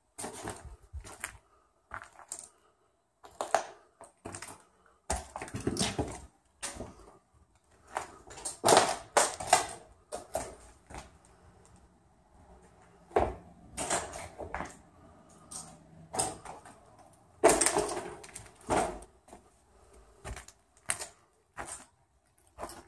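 Footsteps crunching over fallen plaster and broken wood on an old wooden floor, in irregular clicks and crunches, the loudest of them about nine and seventeen seconds in.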